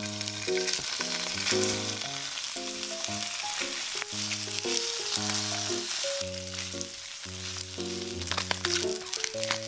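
Slices of canned Spam sizzling steadily in oil in a hot nonstick frying pan, with a few light clicks near the end. Light background music with a simple melody plays throughout.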